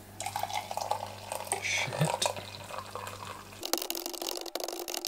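Water poured from a stainless steel kettle into a ceramic mug, splashing and filling. About three and a half seconds in, it cuts to a different sound: a steady tone with rapid clicking.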